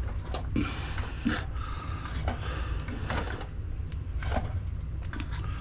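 Baked potatoes being crushed by hand in a soup pot: a string of irregular knocks and clunks of the hand tool against the pot, over a steady low hum.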